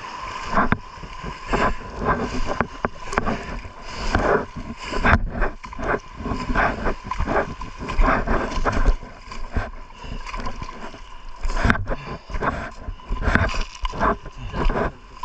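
Seawater sloshing and splashing in irregular bursts, with wind rumbling on the microphone.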